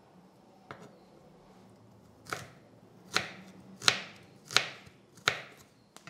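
Chef's knife slicing fresh ginger into thin strips on a wooden cutting board: five cuts, evenly paced about two-thirds of a second apart, each ending in a knock of the blade against the board, after a light tap about a second in.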